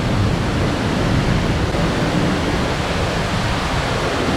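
Steady, loud rush of fast-flowing river water below a waterfall.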